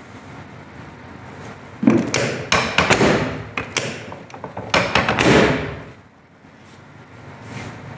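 Sections of a chiropractic drop table giving way under thrusts: a rapid series of loud clacks and thuds, starting about two seconds in and lasting about four seconds.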